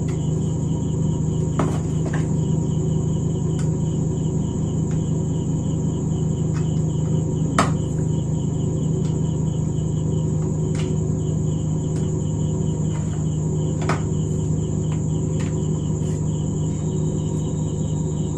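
Scattered sharp clicks of the plastic casing and parts of an opened induction cooktop being handled and fitted back together, the loudest about halfway through. Under them runs a steady low hum with a continuous pulsing high-pitched chirping.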